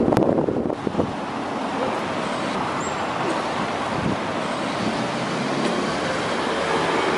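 Road traffic at a city intersection: a steady wash of passing cars, with a louder rush of noise over the first second.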